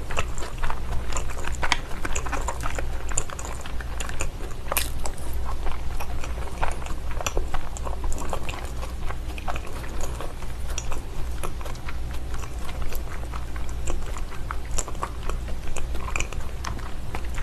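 Close-miked chewing of a mouthful of salmon nigiri sushi (raw salmon on vinegared rice), with many small wet mouth clicks and smacks, over a steady low hum.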